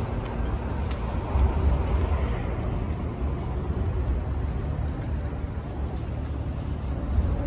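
Steady low rumble of road traffic, an even noise with no distinct events.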